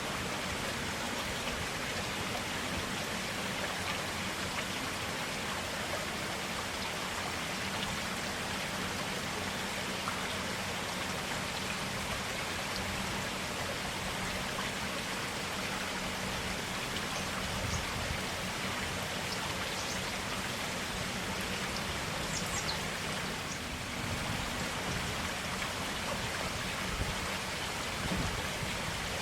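Stream water flowing and splashing over stones, an even, steady rush of clear running water.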